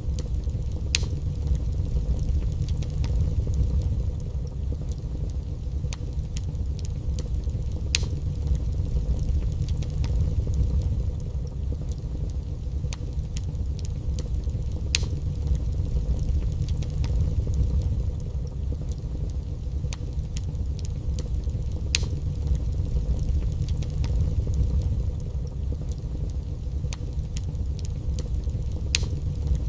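Wood fire burning in a fireplace: a steady low rumble with scattered crackles and a few sharp, louder pops spaced several seconds apart.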